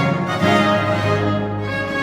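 Music with sustained, held chords and notes in several voices.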